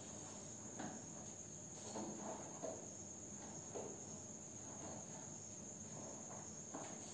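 Faint room sound: a steady high-pitched whine or trill, with a few soft scattered knocks and rustles.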